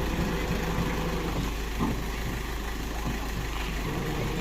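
Heavy diesel engine of earthmoving machinery running steadily at low speed. Its even hum changes slightly about a second and a half in, with a brief knock just after.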